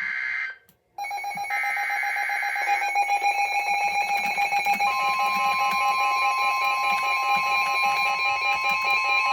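NOAA Weather Radio alert sequence: the screeching digital bursts of a SAME header, sent twice with a short gap, then layered pulsing alert tones, with a steady warning tone near 1 kHz coming in about five seconds in. This is the alert that opens a special marine warning.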